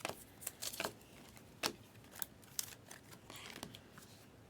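Trading cards being handled and flipped through, with light scattered clicks and short sliding rustles of card stock.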